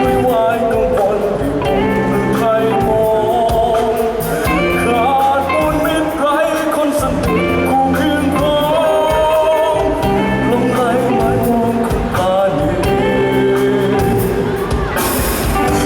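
A band playing a song with a lead vocal line, loud and continuous.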